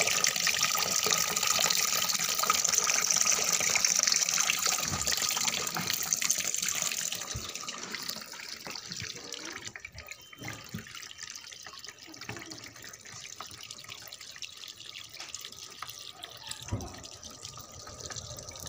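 Tap water running into a washing machine's drum as it fills, a steady rushing hiss that drops noticeably in level about seven seconds in.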